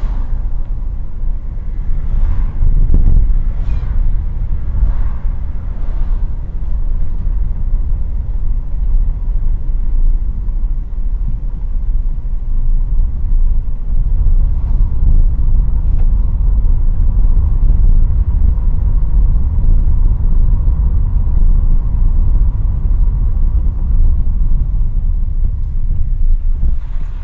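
A car being driven, with steady engine and road rumble heard from inside the cabin, and a few short knocks in the first several seconds.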